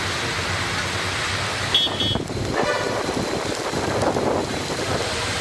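Heavy rain pouring onto a wet road in gusty wind, with vehicles driving through. A vehicle horn toots briefly about two seconds in.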